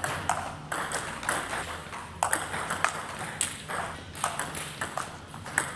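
Table tennis rally: the ball clicks sharply off the paddles and bounces on the table in a quick, uneven series of pings.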